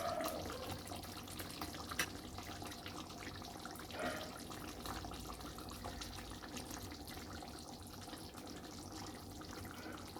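Egg curry gravy boiling in a kadai, a steady bubbling, with a couple of light knocks about two and four seconds in.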